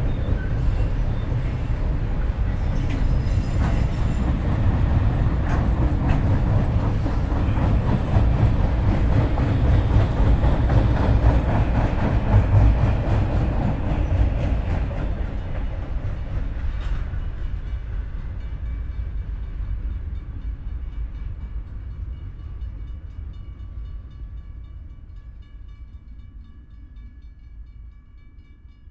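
Freight train rolling past: a heavy rumble and rattle of the cars with scattered clicks, fading steadily away over the last ten seconds or so. As it fades, faint steady high tones ring on.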